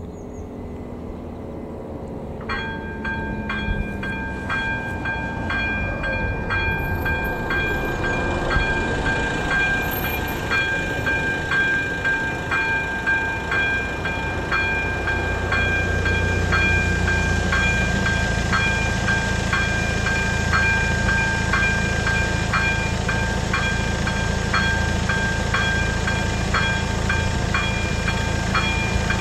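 Electronic warning bell of an AŽD 97 level crossing (ZV02 bell) starts abruptly about two and a half seconds in and rings in a steady, even series of metallic strokes, signalling that a train is approaching and the crossing is closed. A low rumble grows louder underneath in the second half.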